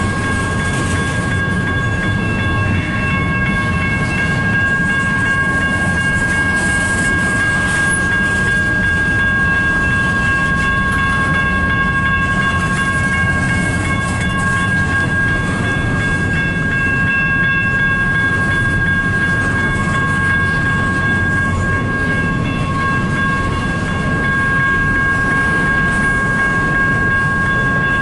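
Double-stack freight train rolling slowly past: a steady low rumble of the cars, with a high steady whine held throughout.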